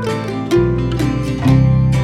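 Background music: plucked string notes over a steady bass.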